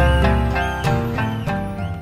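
Instrumental background music, getting quieter toward the end as it fades out.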